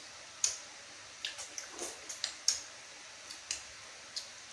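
Eating fruit close to the microphone: a scattering of short wet clicks and smacks of mouth and fruit, about eight in all at irregular times.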